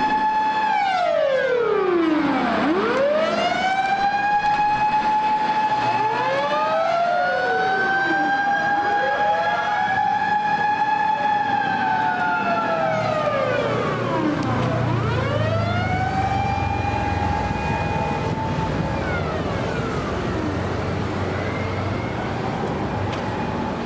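Fire-rescue truck siren on an emergency run, wailing in slow cycles: each rises, holds a steady high note, then falls away, and some wails overlap. A low truck engine rumble comes in about two-thirds of the way through.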